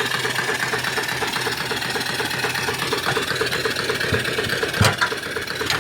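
Small 3-inch-bore, 4-inch-stroke steam engine running steadily under boiler steam, with a quick, even mechanical beat. A single sharp knock stands out near the end.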